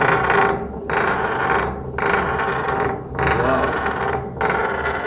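Metal spinning ring scraping and rattling against its surface as it spins, in repeated surges about a second long with short breaks between them.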